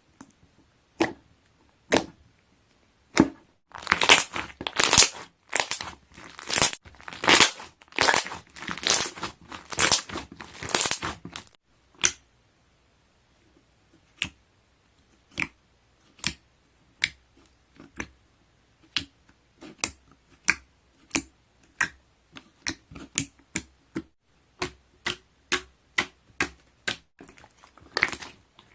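Slime being pressed and squeezed by hand, its trapped air bubbles popping in sharp clicks and crackles. A dense run of pops comes from about four to eleven seconds in, then scattered single pops, thickening again near the end.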